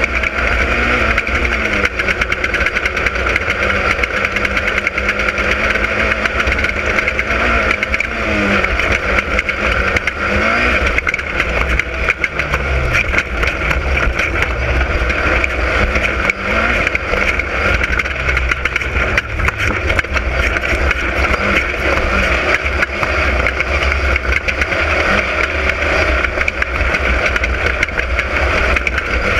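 Class 10 off-road race car running flat out over rough ground: a steady din of rattling and road noise, with the engine note rising and falling as the throttle changes.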